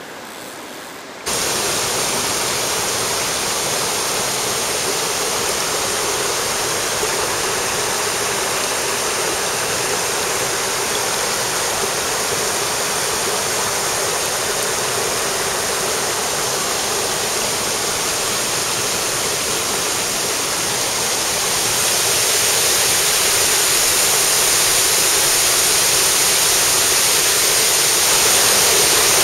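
Mountain stream rushing over rocks: a loud, steady rush of water that starts abruptly about a second in and grows louder about twenty seconds later.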